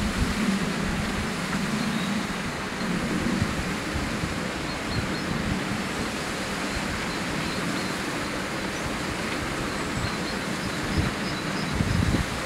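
Steady rushing wind noise on the microphone, with a low rumble that swells and fades.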